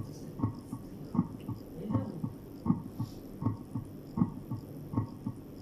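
Normal heart sounds: a steady lub-dub, the first and second heart sounds in regular pairs at about 80 beats a minute, over a faint hum.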